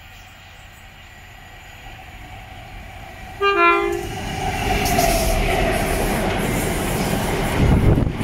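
Colas Rail Class 70 diesel locomotive sounding one short horn blast about three and a half seconds in, then running past with a train of open box wagons: a loud, building rumble of engine and wheels, with the wagons' wheels clattering near the end.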